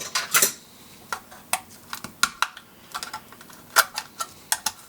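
Irregular sharp clicks and taps of a small screwdriver and a plastic radio case being worked open: a Sony SRF-59 Walkman being unscrewed for a teardown.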